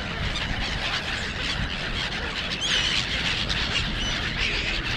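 A flock of gulls calling, many short high squealing cries overlapping one another, over a steady low rumble, as the birds scramble for thrown food.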